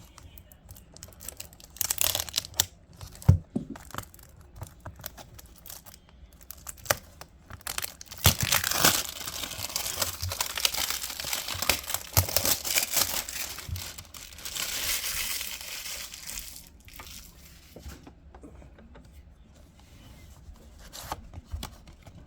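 Packaging of a trading-card booster box being torn open and crinkled by hand, in several bursts of tearing and rustling mixed with sharp clicks and taps. The longest stretch comes about a third of the way in.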